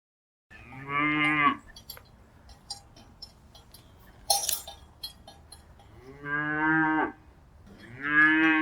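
A cow mooing three times: one long moo about a second in, then two more near the end. Short clinks and knocks sound in between.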